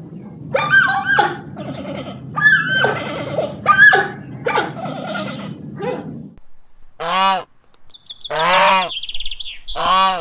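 A series of short bird calls that fall in pitch, over a steady low rumble. Then, after a break, geese honking in short calls, with a high rising whistle-like call between them.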